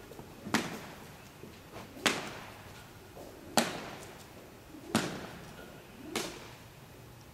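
A long horse lead rope being swung and slapped five times, about every second and a half, each slap sharp and followed by a short echo off the metal walls of an indoor arena.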